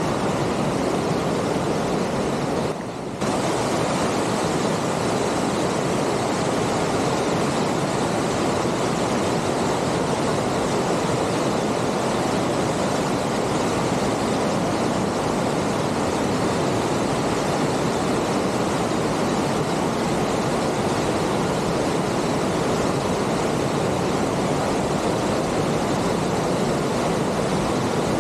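Fast mountain creek rushing over rocks in white-water cascades: a steady, even rush of water, dipping briefly about three seconds in.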